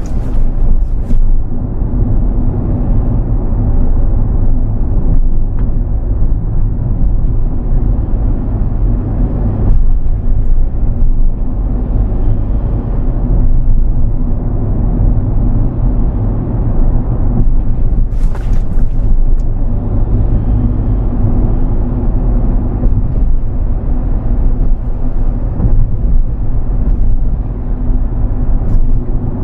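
Daihatsu Atrai RS 4WD van running, a steady low vehicle rumble throughout, with a few brief clicks about a second in and again about two-thirds of the way through.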